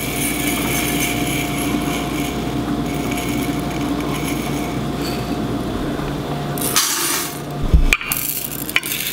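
Dry rice grains pouring from a glass jar into a stainless-steel measuring cup, a steady granular rattle, with a louder rush about seven seconds in and a sharp click soon after. A steady hum sits underneath.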